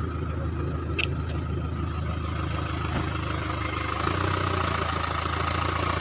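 Truck engine running steadily, with a sharp click about a second in; the engine sound gets louder about four seconds in.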